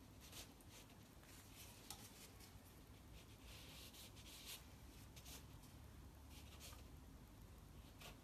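Faint swishes of a watercolour brush stroking across paper: several short strokes, with a longer one about four seconds in.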